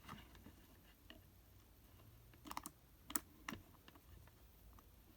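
A few faint, short plastic clicks and taps as multimeter test probes are handled and set against an outlet, two close together about two and a half seconds in, then single clicks about three seconds and three and a half seconds in.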